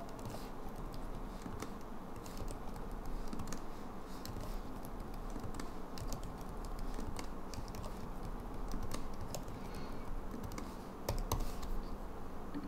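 Typing on a computer keyboard: irregular runs of clicking keystrokes with short pauses between them.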